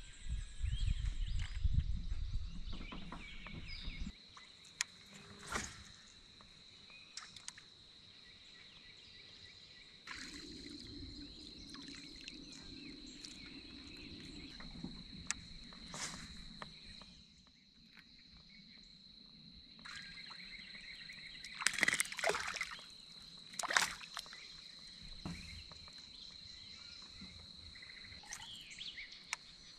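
Water sloshing against a Hobie Mirage Lynx kayak's hull, with scattered knocks and clicks of gear on board and a steady high tone behind them. A low rumble fills the first few seconds, and the loudest sounds are a cluster of sharp knocks about three-quarters of the way in.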